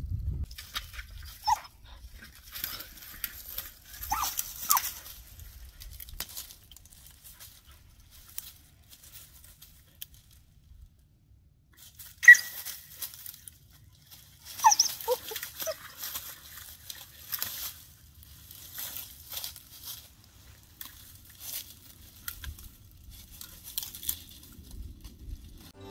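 A dog giving short, high yips or whines every few seconds, with crunching and rustling in dry leaves and brush.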